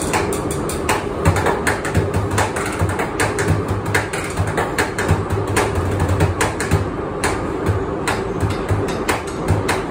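Bucket drumming: drumsticks striking large plastic buckets in a fast rhythm of sharp cracks and deeper thumps, over the steady rumble of a moving metro car.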